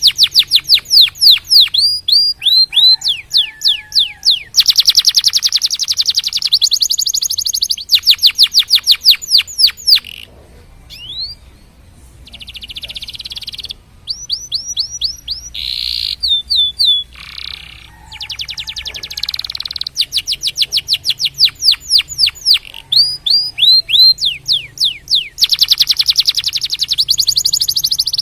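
Canary singing: rapid trills and runs of fast downward-sweeping notes repeated in phrases, with a short quieter pause a little before the middle.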